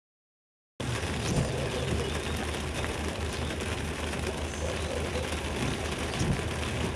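Rain falling on a car's roof and windshield, heard from inside the cabin, over the low steady hum of the car's running engine. The sound starts abruptly under a second in, after a moment of silence.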